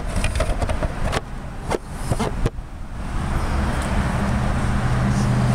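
A few light knocks, then a motor vehicle's engine hum that grows louder over the last couple of seconds.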